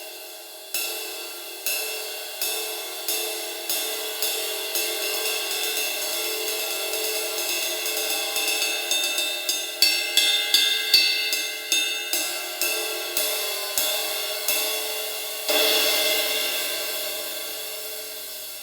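20-inch Zildjian A Custom Sizzle Ride cymbal struck again and again, its sizzle rivets buzzing under each stroke's ring. The strokes come faster and louder toward the middle, then one harder crash about fifteen seconds in is left to ring and slowly die away.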